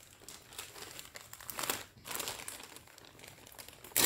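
Plastic packaging crinkling in the hands as a wrapped garment is being opened, in irregular crackles.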